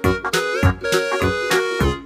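Upbeat background music with a steady, quick beat and a melody whose notes slide in pitch.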